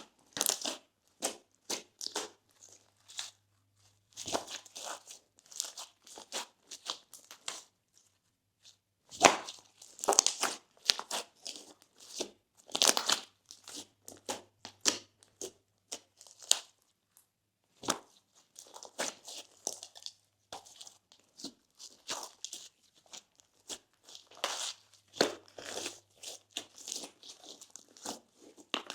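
Slime being squished and stretched by hand, giving irregular crackles, clicks and small pops, with short pauses between handfuls.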